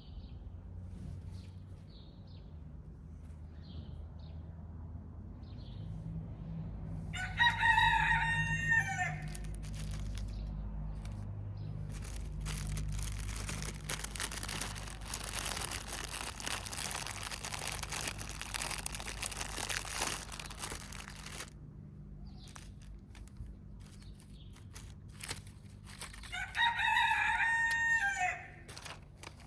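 A rooster crowing twice, each crow about two seconds long, about seven seconds in and again near the end. Between the crows a steady hiss lasts several seconds, over a constant low hum.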